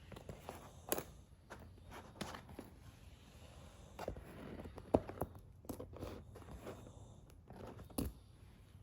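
Packaging being handled: irregular soft taps, knocks and rustles as a gift box is opened, the sharpest knock about five seconds in.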